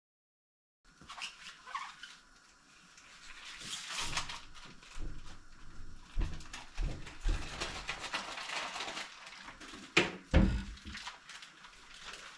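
Kitchen clatter at the sink: scattered knocks, clicks and rustling of dishes and utensils being handled, starting about a second in, with a sharp clack about ten seconds in.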